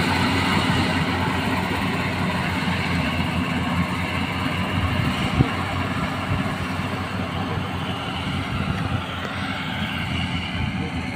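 Rice combine harvester running steadily, its engine and threshing machinery making a continuous mechanical drone, with one sharp knock about halfway through.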